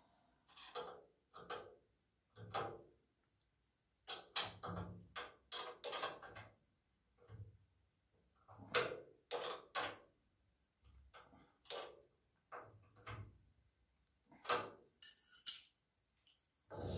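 Light metallic clicks and clinks of hand tools on the nuts and bolts of a swivel caster being fastened to a sheet-steel panel. A quicker run of about three clicks a second comes around four seconds in, and there is a brief metallic ringing near the end.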